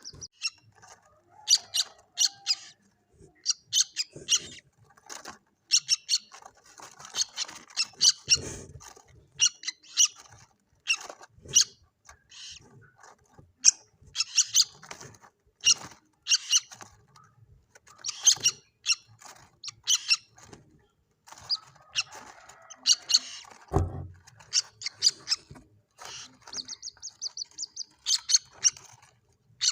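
Common moorhen chicks calling: short high peeps repeated in quick clusters, with a short even trill near the end. A single low thump sounds once, late on.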